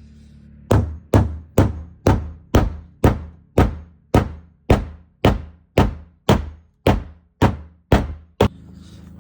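A steady run of about fifteen sharp knocks at an even pace of roughly two a second, each dying away quickly, starting just under a second in and stopping shortly before the end.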